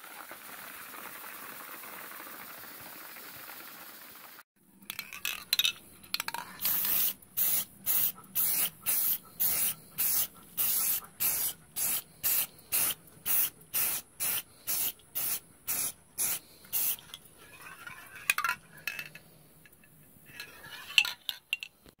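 A hand trigger spray bottle squirted over and over, about two squirts a second for some ten seconds, with a few more squirts near the end. A steady hiss runs before this and cuts off about four seconds in.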